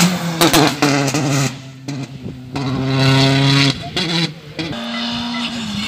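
Rally car engine at high revs passing close by at racing speed. Its note drops in pitch just after the start, cuts in and out through gear changes with a few sharp pops, then fades away. A second engine's steady note comes in near the end.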